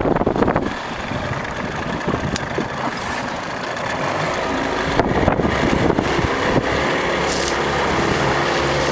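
A motorboat's engine running slowly, with wind gusting on the microphone and water slapping the hull; the engine's steady low hum comes through more clearly in the second half.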